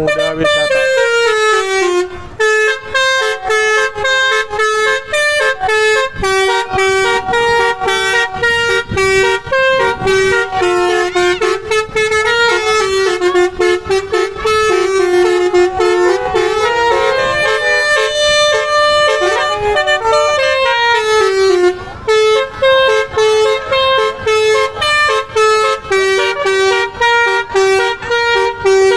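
Basuri telolet horn playing a loud, fast tune of quick stepping horn notes, broken by two short pauses.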